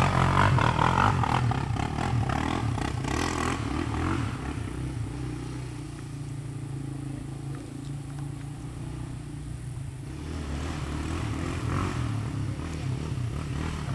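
Toyota FJ Cruiser's engine running off-road, with clattering over the first few seconds. The engine eases off partway through and picks up again about ten seconds in.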